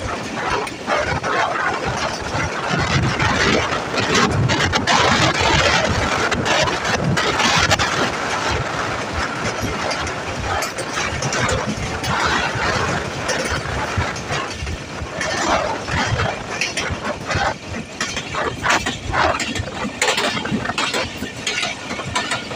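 Passenger train coach running on the track: a steady clatter of wheels on the rails and the carriage rattling, with many quick knocks and clicks.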